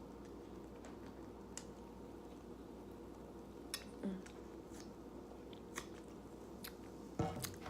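Sipping Diet Coke through a metal straw: a few soft clicks and slurps over a steady low room hum, with one louder short sip near the end.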